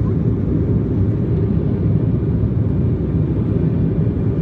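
Steady low rumble of an airliner's jet engines and rushing air, heard from inside the cabin during the climb after take-off.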